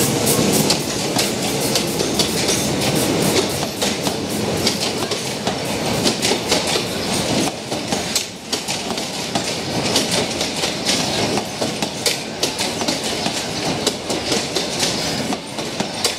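Train passenger coaches rolling past, their steel wheels clicking steadily over the rail joints, fading slightly toward the end.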